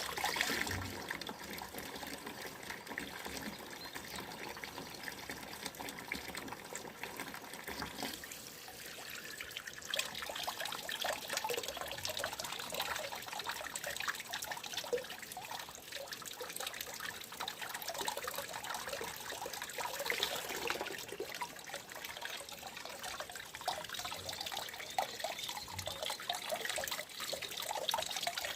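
Running water trickling continuously, with many small splashes and bubbles.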